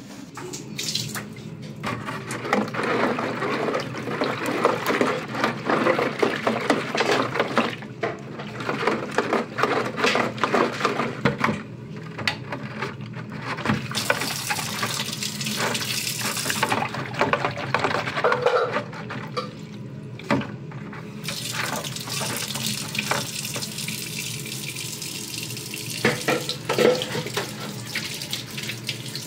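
Tap water running and splashing as a vacuum cleaner part is washed by hand in a sink. The flow and splashing keep shifting in strength, easing briefly twice.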